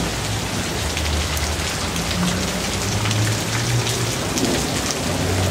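Steady rain falling and pattering on surfaces, with many small drop ticks. A low rumble runs underneath.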